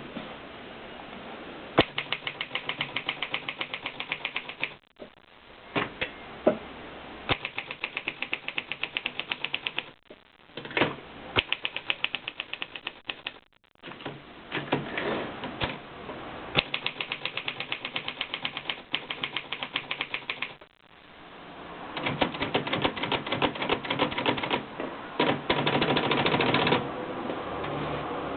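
Consul typewriter being typed on: runs of rapid key strikes, several a second, broken by short pauses, and busier and louder near the end.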